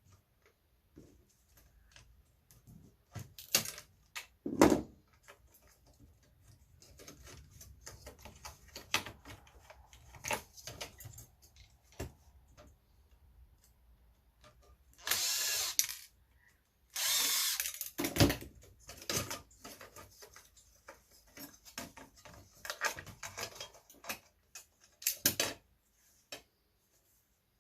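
A power drill runs in two short bursts of about a second each, backing screws out of an Apple eMac's metal parts during scrapping. Scattered knocks and clatter of tools and metal parts come before and after.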